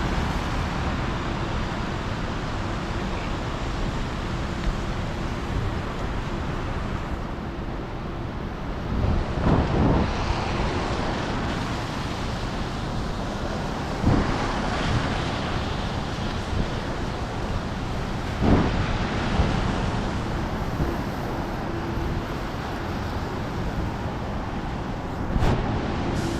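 Traffic on a rain-wet city street, a steady wash of tyre and engine noise, with rain pattering on an umbrella close by. Several brief louder swells and knocks stand out, the biggest about ten, fourteen and eighteen seconds in.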